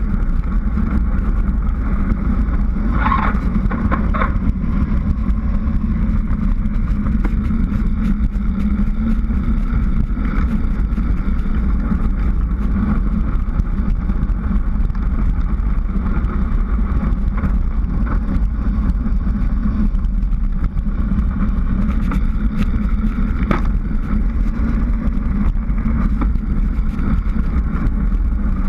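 Steady wind rush on a bike-mounted GoPro's microphone as a mountain bike descends a paved road at speed, mixed with tyre noise on the asphalt. A few brief sharper sounds come through, about three seconds in and again around twenty-three seconds.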